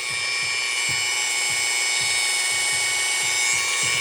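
Dremel 4000 rotary tool running at high speed: a steady high-pitched whine that gets louder right at the start and then holds.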